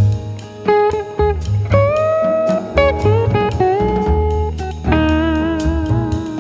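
Music led by guitar, with notes that bend and slide, over bass and drums.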